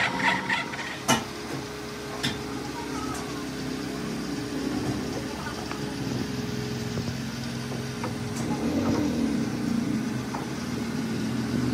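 Metal lathe running with a steady hum, with a few sharp metallic clicks in the first two seconds or so.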